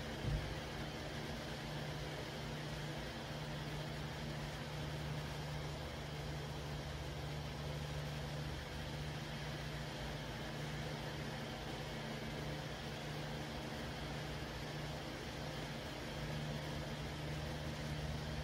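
A steady low hum over a soft, even hiss, swelling and easing every two or three seconds, with one brief knock just after the start.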